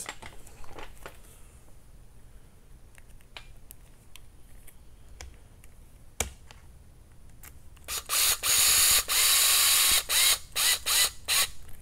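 Small power screwdriver driving 3x10 machine screws into a plastic bumper bracket on an RC chassis: one run of about two seconds, then several short bursts as the screws seat. Before it, light clicks of parts and screws being handled.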